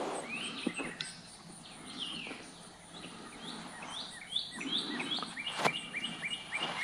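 Birds singing: a series of short repeated chirps that quicken in the middle, with a single sharp click a little before the end.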